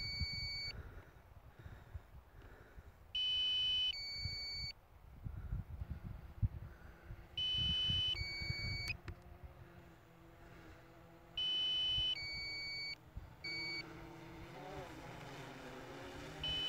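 DJI Phantom 3 drone controller sounding its low-battery warning: an electronic two-tone alarm, a higher tone followed by a lower one, each under a second, repeating about every four seconds. Wind rumbles on the microphone between the alarms. Near the end a faint hum comes in as the descending drone nears.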